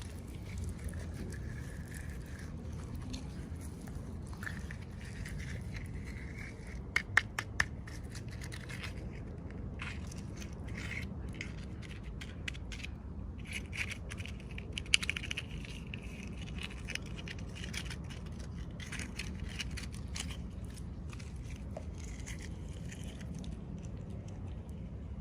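Toy packaging being handled and opened: scraping and crackling of the wrapping, with a few sharp clicks about seven seconds in and again around fifteen seconds, over a steady low hum.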